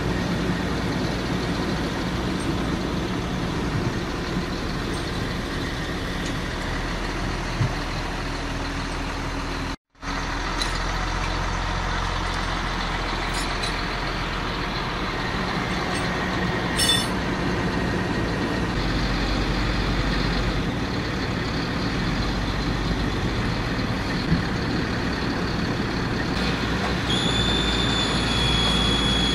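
Heavy diesel trucks idling: a steady low rumble, broken by a brief dropout about ten seconds in. Near the end a steady high whine starts over it.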